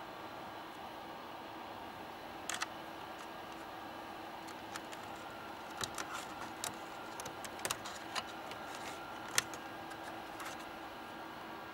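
Light, irregular clicks and taps of small hard objects being handled, a dozen or so scattered over several seconds, over a steady hiss with a faint hum.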